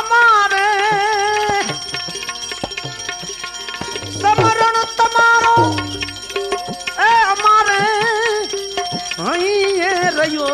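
Gujarati devotional bhajan music: a melody line that wavers and bends in pitch over tabla strokes, with deep bass-drum thumps now and then.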